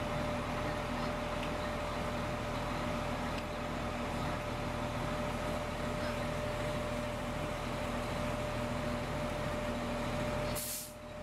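Steady mechanical hum of an idling vehicle, with a constant whine over a low drone, dropping away briefly near the end.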